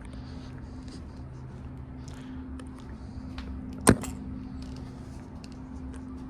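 A steady low mechanical hum with faint scattered ticks, broken by one sharp click a little under four seconds in.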